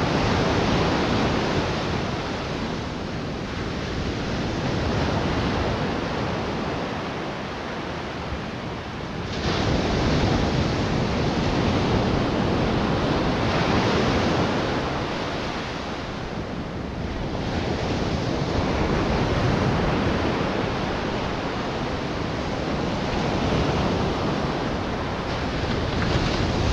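Ocean surf breaking and washing up a sandy beach, swelling and fading every few seconds, with a louder wave breaking suddenly about nine seconds in.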